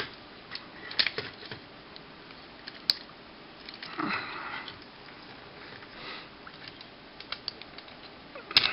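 Hard plastic parts of a transformable toy jet-robot clicking and rubbing as they are handled and moved into place: scattered small clicks, a few sharper ones, and a short soft rustle about four seconds in.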